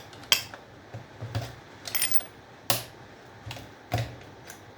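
Small metal parts of old circuit breakers clinking as they are handled and dropped: a handful of separate sharp clinks, one about two seconds in ringing briefly.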